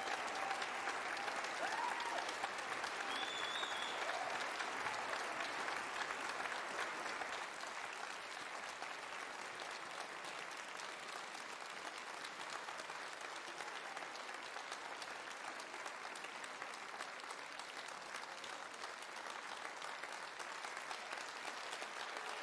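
Audience and stage party applauding steadily, the clapping a little louder over the first several seconds before easing slightly, with a few faint voices calling out near the start.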